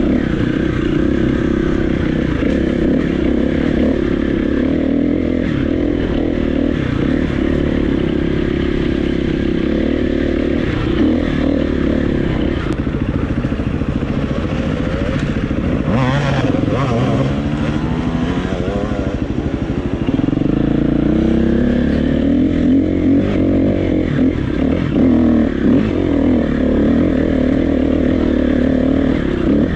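KTM 350 EXC-F's single-cylinder four-stroke engine pulling under load off-road, its revs rising and falling with the throttle, with a sharp climb in revs about sixteen seconds in.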